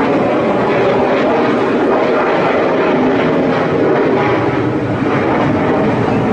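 Airplane passing overhead, a loud, steady engine noise that fills the pause.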